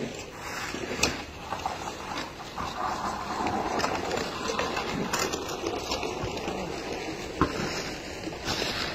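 Snow shovel scraping over packed snow while plastic pallets are moved, with a few sharp knocks.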